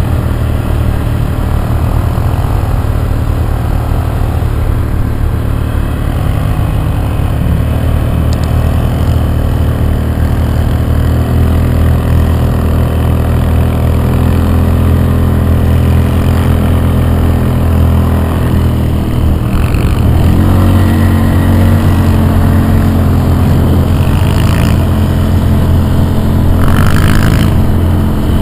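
Single-cylinder engine of a Honda ATC200S three-wheeler running at steady, fairly low revs, with the pitch stepping up a little about eleven seconds in and again about twenty seconds in.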